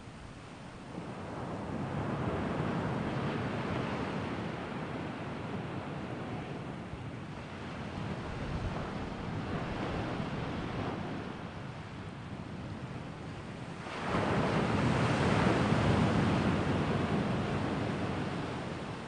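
Wind gusting over the microphone in swelling, fading rushes, with the strongest gust arriving suddenly about three-quarters of the way through.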